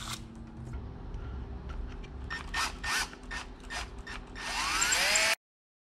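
A few short sharp noises, then a cordless drill spins up with a rising whine and bites into the aluminum engine block through a steel drilling guide, drilling out the old timing-chain guide pivot-pin hole. The sound cuts off suddenly.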